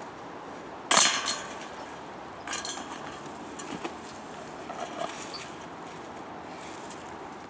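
Metal chains of a disc golf basket jangling as a putted disc strikes them, a sharp clash about a second in that rings on briefly. A second, weaker clash of the chains comes about a second and a half later, and a fainter rattle follows near five seconds in.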